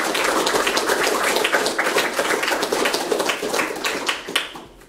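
Audience applauding, many hands clapping together and dying away near the end.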